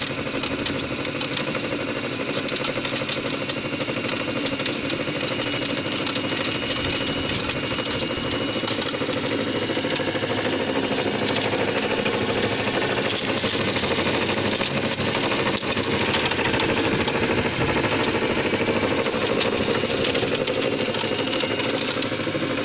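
Homemade belt-driven bean thresher running and threshing dried bean pods: a steady fast clatter of pods being beaten by the rotating drum, over a steady high whine.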